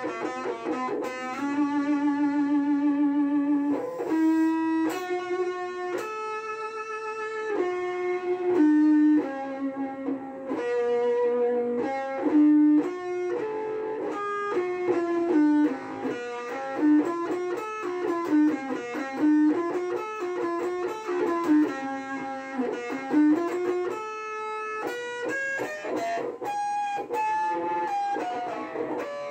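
Guitar played alone: a single-note melodic lead line of held notes, some shaken with vibrato and some bent up or down in pitch.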